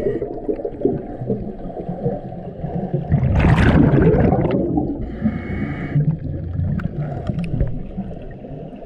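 Scuba diver breathing through a regulator underwater, with a steady low water rumble. A loud gush of exhaled bubbles comes about three and a half seconds in, followed by a fainter hiss.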